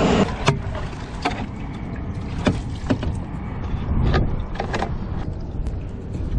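Several sharp clicks and knocks, spread irregularly over a few seconds, from fishing gear and line being handled on a plastic fishing kayak, over a low steady rumble. A louder steady rushing noise cuts off just after the start.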